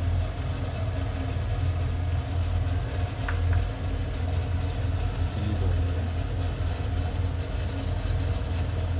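A steady low machine hum, with one short light clink a little over three seconds in.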